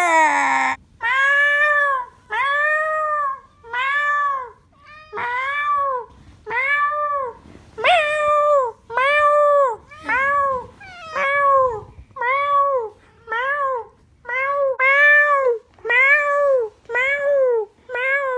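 Domestic cat meowing over and over, a long run of short meows about one a second, each rising then falling in pitch, coming a little faster in the second half.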